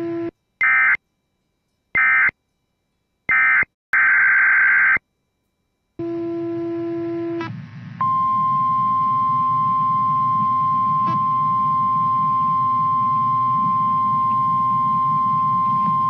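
Emergency Alert System activation: four short bursts of buzzy SAME digital header data tones, separated by silence, in the first five seconds. From about eight seconds in, the steady single-pitch 1050 Hz NOAA Weather Radio warning alarm tone sounds over a low hum, announcing a severe thunderstorm warning.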